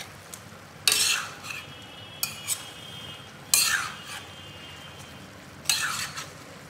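Steel spoon scraping and stirring mutton and chopped onion in a stainless-steel kadhai: a handful of sharp scrapes a second or two apart, the pan ringing briefly after some of them, over a low sizzle of frying.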